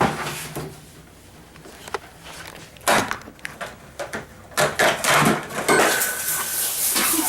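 Knocks and clatter of aluminium drink cans being handled, thickest from about four and a half seconds in. A hiss builds near the end as a punctured Coke can starts spraying through a pinhole.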